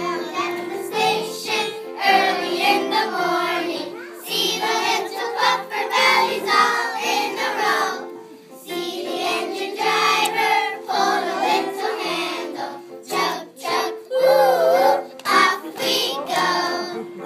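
A class of young children singing together in unison, over instrumental accompaniment.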